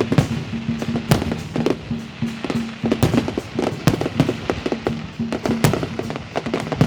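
Fireworks going off in quick, irregular succession, many sharp bangs a second, with music playing underneath.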